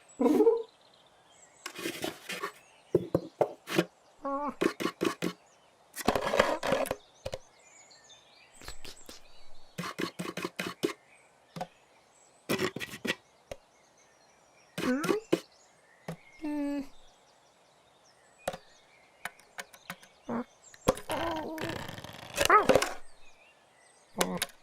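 A string of short, separate sounds: squeaky chirp-like and voice-like noises mixed with knocks. Near-quiet gaps of a second or more fall between them.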